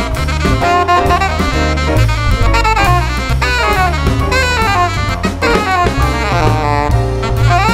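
Alto saxophone improvising a jazz solo over a blues, backed by double bass, piano and drum kit.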